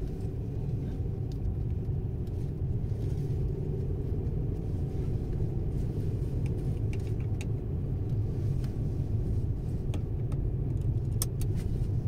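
Steady low car rumble heard inside the cabin, with a few light clicks near the end.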